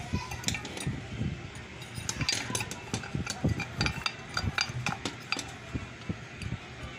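Irregular clicks, taps and light scrapes as a ribbed glass lampshade and the desk lamp's metal socket fittings are handled and fitted together by hand.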